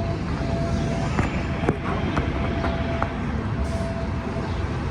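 Steady low rumble of a moving vehicle heard from inside, with a run of light clicks about twice a second for a couple of seconds in the middle.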